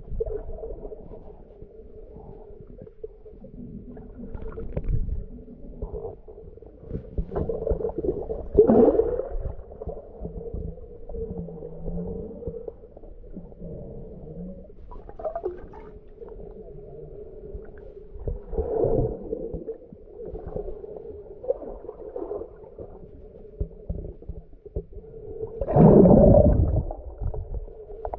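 Muffled underwater sound picked up by a camera below the surface: a steady hum with rushing surges of water noise, strongest about nine, nineteen and twenty-six seconds in, the last one the loudest.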